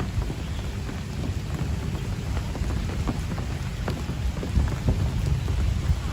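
Steady rain with scattered individual drop hits, over a continuous low rumble of thunder that swells somewhat in the second half.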